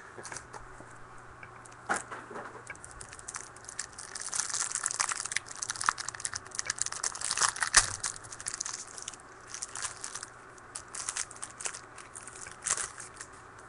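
Foil wrapper of a trading-card pack crinkling and tearing as the pack is opened by hand, with a busy crackling spell in the middle and scattered sharp crinkles around it.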